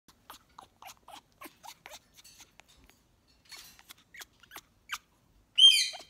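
Hormonal female African grey parrot making a run of short clicks, about four a second, then a couple of brief raspy hisses and a few more clicks, and near the end one loud, high, gliding squawk, the loudest sound.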